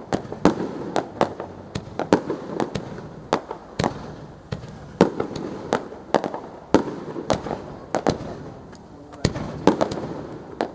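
Fireworks display: a rapid, irregular volley of sharp bangs, often several a second, with rumbling echoes between them.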